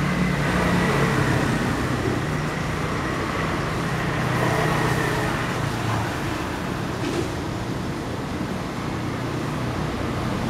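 Street traffic on a wet road: a steady hiss with the low hum of vehicle engines, strongest in the first half, as motor scooters and cars pass.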